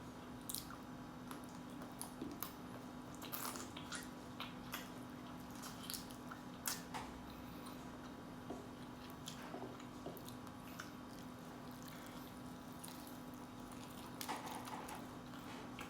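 Person eating, with irregular chewing clicks and smacks that thin out in the middle and pick up again near the end, over a steady low hum.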